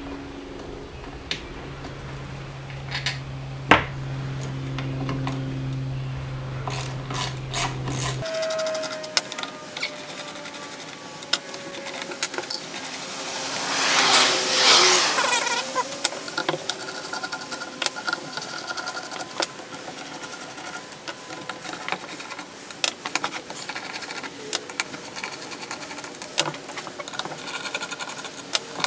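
Ratchet wrench clicking as small rusted bolts are backed out of a cast transaxle case, with scattered metallic clicks and clinks. A louder grating burst comes about halfway through, and a low hum drops out about eight seconds in.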